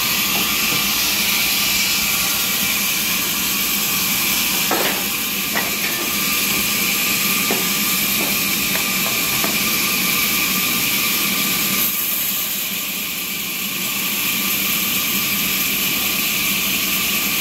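Sawmill machinery running with a steady, loud hiss over a low hum, a few light knocks between about five and ten seconds in, and the level dipping briefly about two-thirds through.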